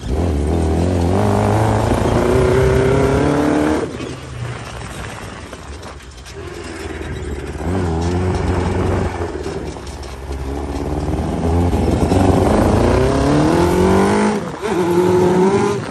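Dune buggy's Suzuki motorcycle inline-four engine accelerating hard, its pitch rising steeply several times. The revs fall off sharply about four seconds in and again near the end, as at a gear change or lift off the throttle.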